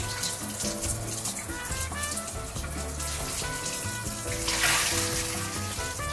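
Background music with a melody and steady bass over water running from a kitchen tap into a sink as fish is rinsed under it. A short burst of hiss about four and a half seconds in is the loudest sound.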